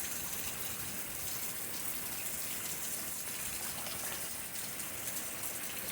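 Steady heavy rain falling.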